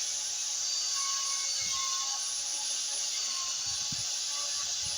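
Stihl pole saw running steadily as its chain cuts through a maple branch.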